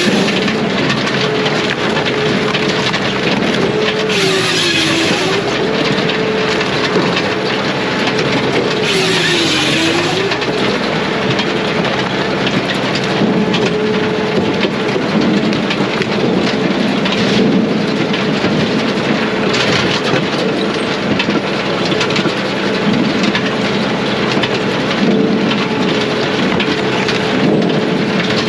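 Brute Force USA 18-24HD diesel firewood processor running steadily. Its note drops briefly about four to five seconds in and again near ten seconds, each time with a burst of loud rushing noise as the machine works through the wood under load.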